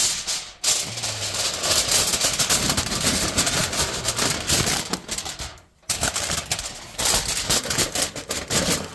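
Aluminium foil being pulled, crinkled and pressed by hand, a dense crackling full of quick clicks that breaks off briefly a little past halfway.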